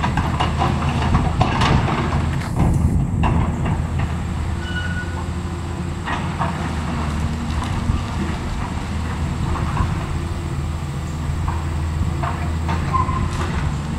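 Volvo tracked excavator's diesel engine running steadily while it loads demolition debris into a dump truck, with scattered clunks and clatter of debris dropping into the truck bed.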